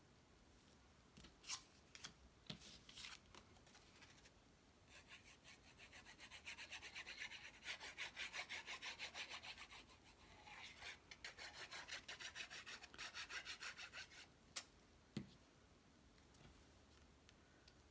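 Quick back-and-forth rubbing on paper, about four or five strokes a second with a short pause midway: a cardstock panel being pressed and rubbed down onto the card base so the glue takes. A few light paper clicks come first, and one sharp tap near the end.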